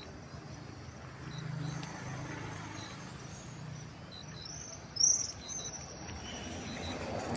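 Birds chirping: a faint short chirp repeats every second or so, and one loud, sharp bird call comes about five seconds in. A low rumble swells near the end.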